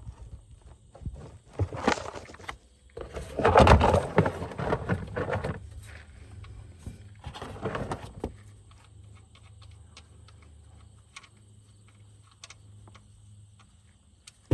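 Oil drain plug being worked out of a car's oil pan: three bursts of clattering handling noise, the loudest a few seconds in, with scattered clicks over a low steady hum.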